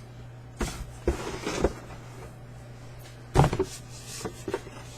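Boxes and packaging being handled: a few short knocks and rustles, the loudest about three and a half seconds in, over a low steady hum.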